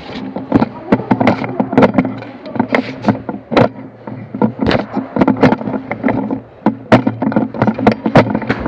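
Airsoft gunfire: many sharp, irregular cracks and knocks, several a second, over a steady low hum.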